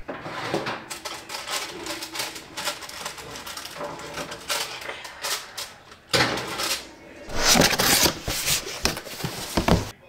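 A juicer's cardboard box being opened and unpacked: irregular scraping, rustling and knocking of cardboard flaps and packaging, louder for a couple of seconds past the middle.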